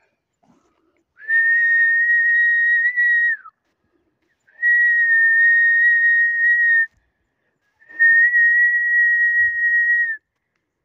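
Someone whistling three long, steady notes on the same high pitch, each about two seconds long with a short pause between; the first note drops away at its end.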